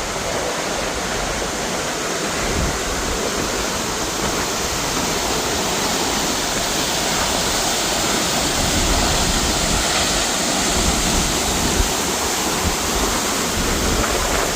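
Vernal Fall's water pouring down, heard close up as a steady, unbroken rush of falling water.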